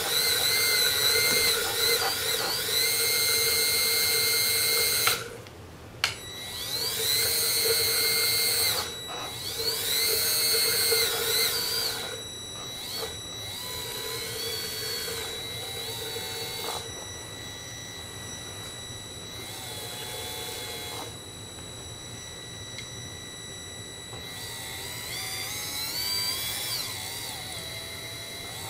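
Small electric smoke-oil pump motor whining as it pumps test fluid through the injector nozzle back into the reservoir jar. Its pitch rises and falls as its speed changes. It stops for about a second around five seconds in, then restarts, and runs more softly in the second half.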